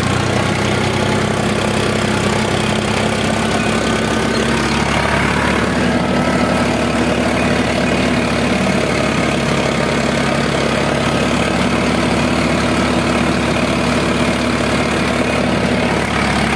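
Farmtrac 60 Powermaxx 55 hp tractor's diesel engine running steadily at a set throttle of about 1500–1600 rpm, pulling a fully angled 18-disc harrow in second high gear, heard from the driver's seat.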